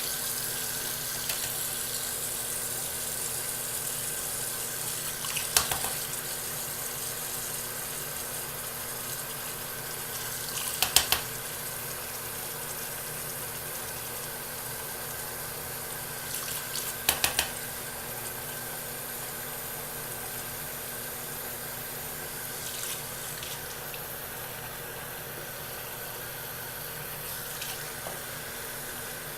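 Bathroom sink tap running steadily. A few short, sharp clicks or knocks come now and then, some in quick twos and threes.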